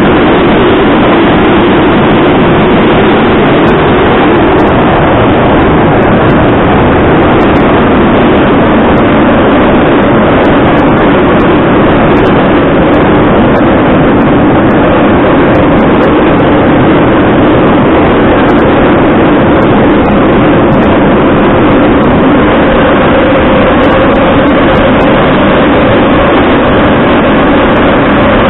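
Metro train running at speed between stations, heard from inside the carriage: a loud, steady rumble of wheels on rails, with a hum that drifts slightly higher over the last few seconds.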